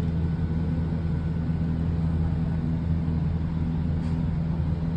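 A steady low machine hum, even and unbroken.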